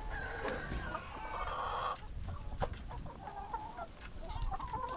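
A flock of laying hens clucking and calling, with scattered sharp clicks and pecks as they feed on grass.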